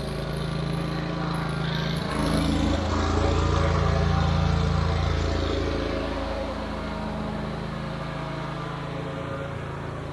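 Wright Stander stand-up mower's engine running steadily on its newly replaced carburetor, without stalling. It gets louder from about two seconds in and eases back after about six seconds.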